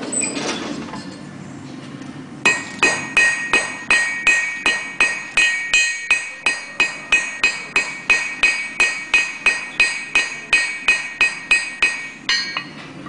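Blacksmith's hand hammer striking a red-hot steel bar on an anvil, about three blows a second, each blow ringing off the anvil. The hammering starts a couple of seconds in and stops near the end, with the last few blows coming faster.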